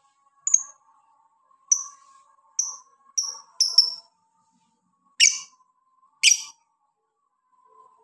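Lovebirds calling: a run of short, high-pitched chirps in the first few seconds, then two louder, harsher squawks about a second apart.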